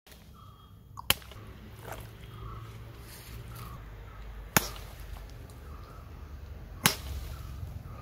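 Machete blade chopping into a skinned goat carcass: three sharp chops a few seconds apart, with a softer stroke just after the first, as the carcass is cut into pieces.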